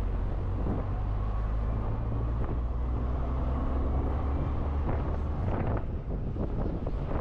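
A heavy vehicle engine running steadily as a deep rumble, with wind on the microphone; the rumble eases off about five and a half seconds in.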